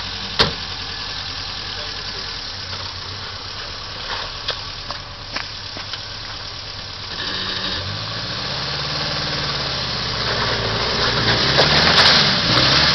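Subaru EA81 sedan's flat-four engine running at low revs as the car crawls over rough ground, with a few knocks early on. From about seven seconds in the revs rise and it gets louder, loudest near the end.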